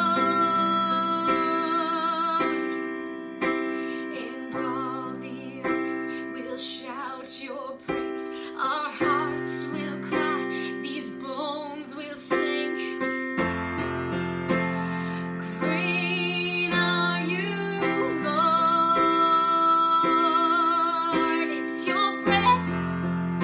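A woman singing a slow worship song with vibrato, over sustained keyboard chords.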